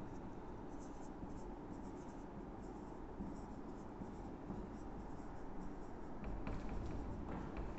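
Marker pen writing on a whiteboard: faint, short, intermittent strokes over a steady low room hum.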